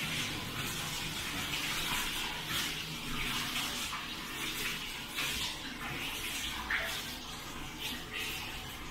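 Hot-spring water sloshing and splashing in a round wooden bathtub as a bather moves and settles in it, with irregular small splashes throughout.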